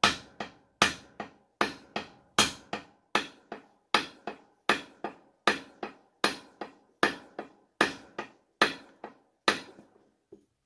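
Steady hammer blows on the end of a new wooden axe handle, driving the axe head down onto it, about two and a half blows a second, louder and softer strikes roughly alternating, stopping shortly before the end. The handle is a very tight fit in the head's eye, so it goes on slowly.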